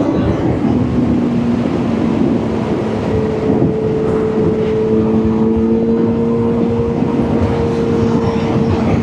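Motorcycle engine running at steady revs while riding, with a rushing wind-and-road noise around it.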